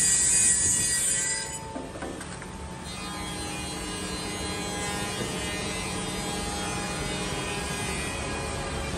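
Double-end tenoner with crawler-track feed cutting the ends of a wood panel: a loud, high-pitched whine of the saw and milling heads in the board that drops away about one and a half seconds in as the cut ends. After that the machine's motors and track feed run on steadily.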